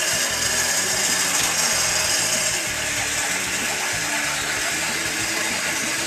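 Small Capsela electric motor whirring steadily as it drives the model's paddle wheels in the water, with a constant hiss.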